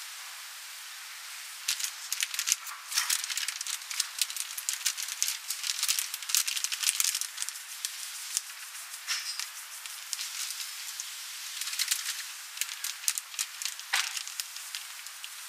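Dense crackling and rustling noise, full of short sharp clicks that bunch up for a few seconds at a time.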